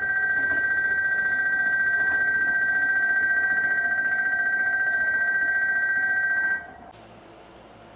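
Loud, steady electronic warning tone of two high pitches sounding together, held for about six and a half seconds and then cutting off abruptly, as a train approaches. A faint low hum follows.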